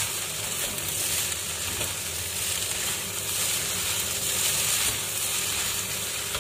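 Nasi goreng (fried rice) sizzling steadily in a hot pan as it is fried, with a steady low hum underneath.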